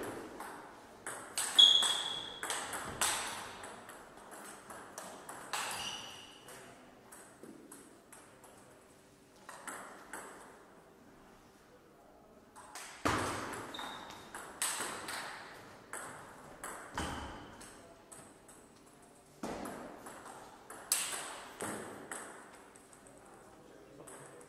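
Table tennis rallies: a ping-pong ball clicking off rubber paddles and bouncing on the table in quick alternation. Three rallies come with pauses of a few seconds between points.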